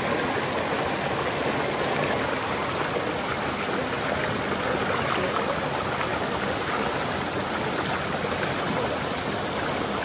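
Shallow stream running and cascading over rocks: a steady rush of water.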